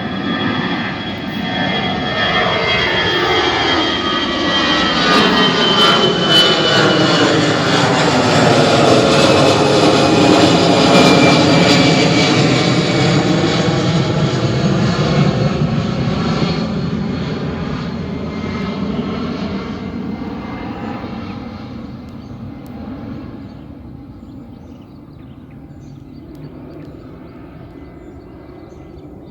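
Airliner engines at takeoff power as the plane passes close by: the sound builds, peaks about a third of the way in, then fades away, with a high whine falling in pitch as it goes past.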